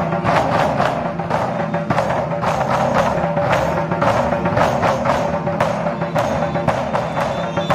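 Lion-dance drum troupe playing: a row of large barrel drums beaten together in a steady, driving rhythm, with sharp crashing strokes about twice a second.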